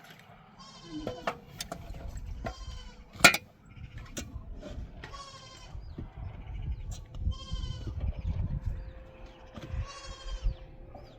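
Sheep and goats bleating, about five quavering calls spread out one after another, with a single sharp knock about a third of the way in.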